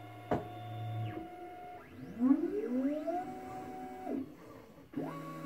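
Formlabs Form 2 resin 3D printer's motors whining between layers as the build platform lifts out of the resin tank and moves back. The tones rise in pitch, hold and fall away several times, with a sharp click about a third of a second in.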